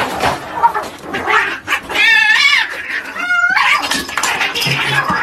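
House cats fighting: hissing and scuffling, with two wavering yowls about two and about three seconds in.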